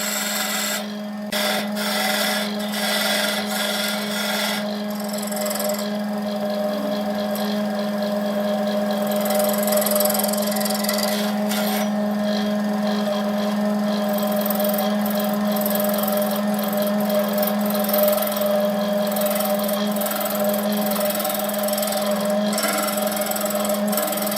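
Wood lathe running with a steady hum while a tool works against the spinning wood-and-epoxy blank.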